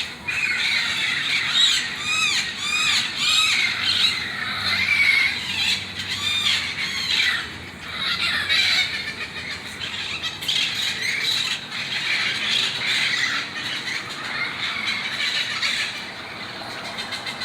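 A large flock of feral parrots squawking and screeching at once, many harsh calls overlapping without a break.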